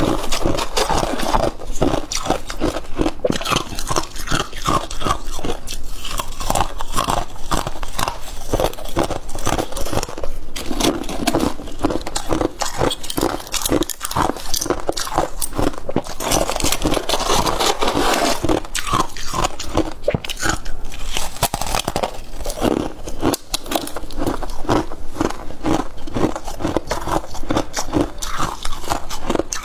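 Close-up crunching and chewing of frozen freezer frost, a steady run of crisp cracks with a few stretches of scraping mixed in.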